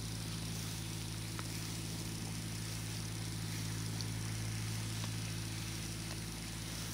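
A steady low mechanical hum with a constant pitch, like an engine or motor running at an even speed.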